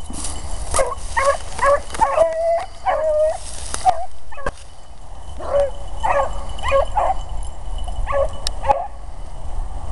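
Beagles baying and yelping in short, pitch-bending calls, several a second, with a brief lull about halfway through: the pack giving tongue where the rabbit they were running has gone into cover.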